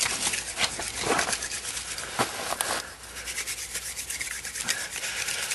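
Dry leaves and twigs crackling as they are handled, then from about three seconds in a steady rasping rub of a wooden hand-drill spindle twirled between the palms to make a friction fire.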